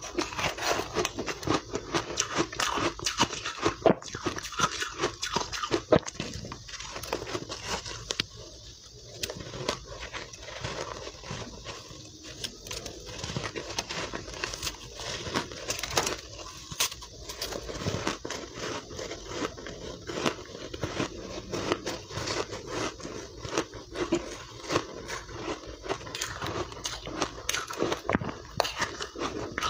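A person chewing mouthfuls of refrozen soft ice coated in matcha powder: a dense run of crisp crunches, easing briefly about eight seconds in.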